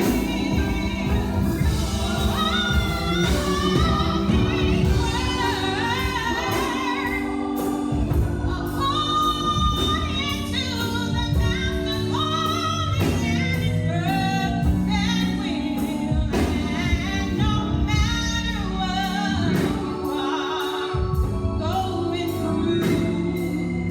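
Gospel music: singing over instrumental accompaniment with steady sustained low notes and a beat.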